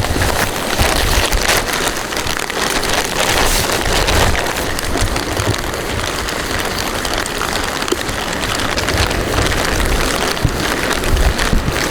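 Steady rain falling, a dense hiss of drops, with irregular low rumbles.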